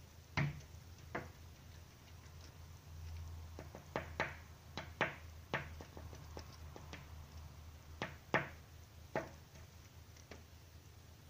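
A tit pecking at window glass: about a dozen sharp taps at irregular intervals, some in quick pairs.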